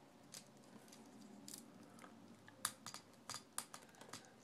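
Faint, separate plastic clicks as the jointed parts of a plastic Transformers figure are moved by hand, about half a dozen in all.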